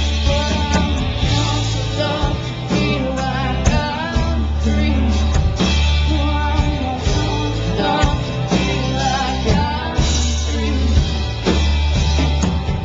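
Live rock band playing loud: electric guitars over bass and a drum kit, recorded on a small camcorder's built-in microphone.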